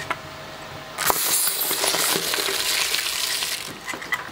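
Twin-shaft shredder's steel blades catching and tearing up a rubber American football: after a few light knocks, a loud crackling hiss starts about a second in, holds for about two and a half seconds and thins out near the end as the ball is torn apart and pulled through.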